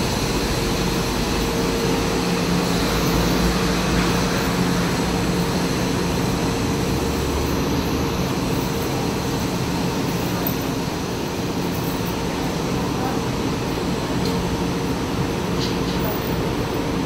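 São Paulo Metro train standing at the platform with its doors open, its onboard equipment giving a steady hum with a couple of steady tones, over a background murmur of voices.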